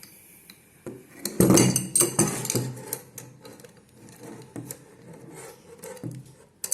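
Metal clinking and clattering as an adjustable wrench and a tube compression fitting are handled and the wrench is set on the nut. The loudest clatter comes about one and a half to two and a half seconds in, with scattered clicks before and after.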